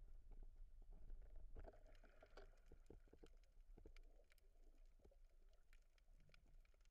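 Very faint underwater ambience heard through a camera's waterproof housing: a low rumble with scattered small clicks and crackles.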